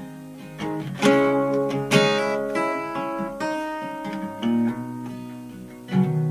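Acoustic guitar playing: chords strummed and left to ring out, with strong strums about one and two seconds in and again near the end.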